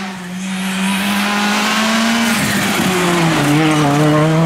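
Citroën C3 rally car's turbocharged 1.6-litre four-cylinder engine at high revs through a corner. Its note holds steady, drops about halfway through, then climbs slowly as the car pulls away.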